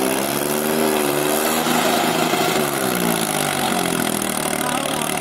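Diesel tractor engine running hard, its revs rising and falling as the tractor spins in tight circles on loose dirt.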